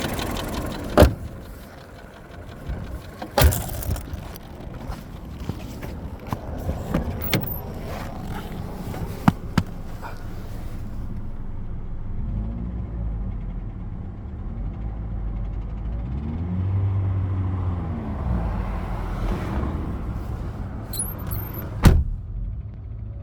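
Volkswagen Golf 6 1.4 CGGA petrol engine, with several sharp thumps in the first ten seconds. Then, about halfway in, the engine is slowly revved up and let back down a couple of times toward 2000 rpm, where the owner hears a knock that comes and then goes away. One more sharp thump comes near the end.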